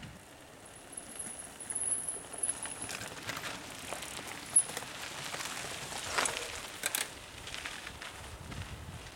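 Mountain bikes ridden past on a dirt forest trail: tyres crunching over sand, grit and pine cones, with irregular sharp clicks and ticks, the loudest about halfway through. A thin high squeal sounds during the first couple of seconds.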